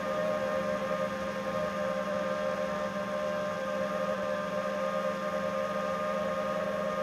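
FPV quadcopter's brushless motors and propellers whining steadily at constant throttle in cruise, several steady tones held at one pitch.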